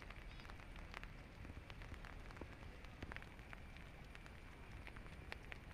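Faint steady rain, with scattered drops ticking irregularly on leaves and the floodwater.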